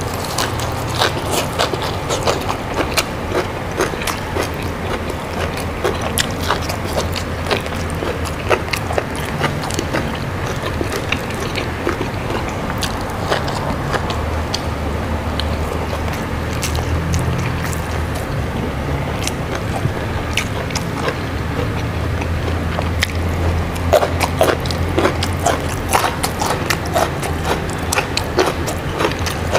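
Close-miked chewing and crunching of raw young jengkol beans and raw vegetables, a steady run of small crisp clicks.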